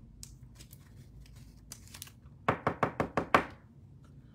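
A quick run of about seven light knocks on a tabletop, lasting about a second, starting halfway in. Faint clicks of card handling come before it.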